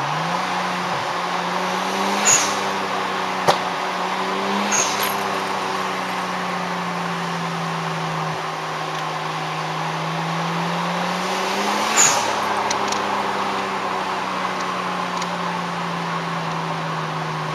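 Nissan Skyline R34 GT-T's turbocharged RB25DET NEO straight-six heard from inside the cabin while driving, its note rising under acceleration and dropping back several times. An HKS blow-off valve vents with a short hiss on lift-off about two, five and twelve seconds in, and there is a single sharp pop about three and a half seconds in.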